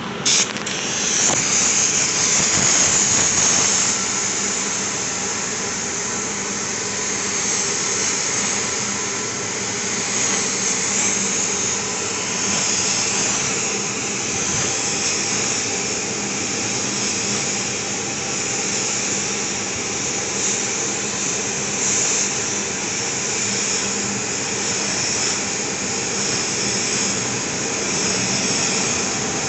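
Compressed-air paint spray gun hissing steadily while spraying a coat of paint, starting with a sharp burst of air right at the start; a steady lower hum runs underneath.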